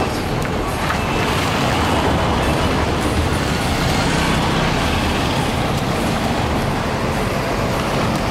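Steady road traffic: a car and a motorcycle drive toward the microphone over a broken, potholed street, and a city bus approaches near the end, their engines and tyres running.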